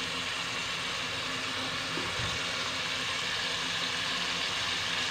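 Baingan bharta (mashed eggplant masala) sizzling steadily in an aluminium pot over a gas burner.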